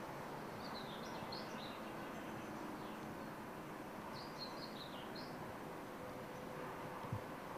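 Outdoor ambience: a steady background hiss with a small bird chirping in two short runs of calls, about a second in and again around four seconds in. A brief knock near the end.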